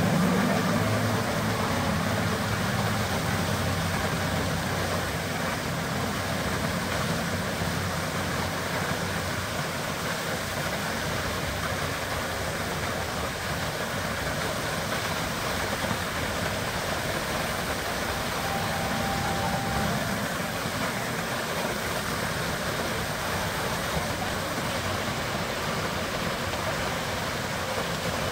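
Steady rushing and splashing of the Merlion fountain's large water jet pouring into the bay, with a low hum underneath that is strongest in the first couple of seconds.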